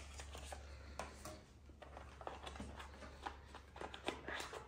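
Cardboard phone packaging being handled: scattered light scrapes, taps and rustles as an inner box slides out of its cardboard sleeve.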